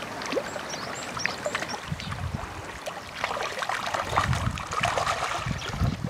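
Herabuna (Japanese crucian carp) splashing in shallow weedy water on their spawning run: scattered sloshes and splashes. Low wind rumbles on the microphone now and then.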